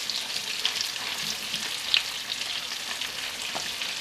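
Chicken breasts frying in melted butter and olive oil in a skillet: a steady sizzle with small crackling pops, and one sharper click about two seconds in.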